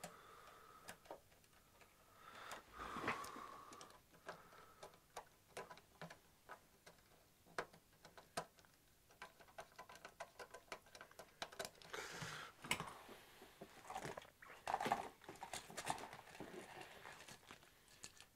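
Faint scattered clicks and knocks with bouts of rustling: multi-way probe-cable connectors and ribbon cables being handled and plugged into the front sockets of a logic analyser.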